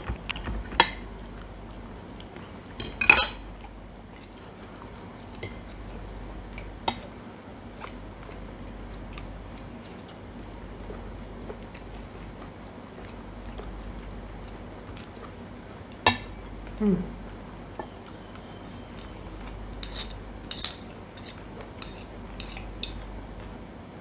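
Metal knife, fork and spoon clinking and scraping on ceramic plates during a meal: scattered single clinks, with a quick run of them near the end.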